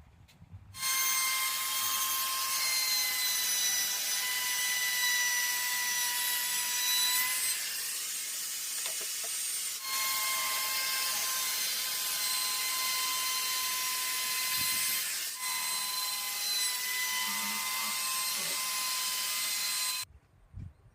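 An electric power tool runs steadily on pine wood, with a high whine over a rough hiss. It breaks off briefly twice and stops suddenly near the end.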